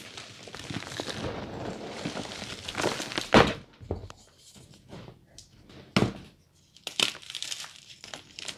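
Reformed gym chalk being crushed and sifted by bare hands: a steady gritty hiss of powder pouring through the fingers for the first few seconds, then sharp crunches as chalk chunks break, the loudest about three and a half seconds in and more around six and seven seconds in.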